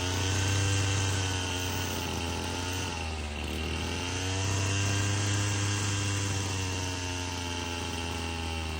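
Husqvarna 525L two-stroke string trimmer engine running at a high idle, its speed sagging about three seconds in and picking back up a second later. The uneven high idle is the sign of an air leak, which the mechanic traces to a wrong carburetor gasket with the other gasket missing.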